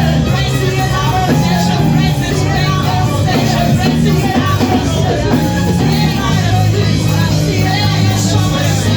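Loud band music with a steady bass line changing notes every second or so, and voices singing over it, typical of live church worship music.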